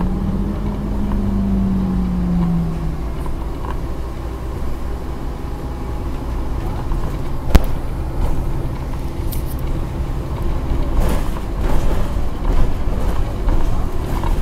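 Scania OmniCity N230UD double-decker bus heard from inside the lower deck: its five-cylinder diesel engine and drivetrain running with road noise. A whine falls in pitch over the first few seconds, there is one sharp click about halfway through, and the noise grows rougher and uneven over the last few seconds.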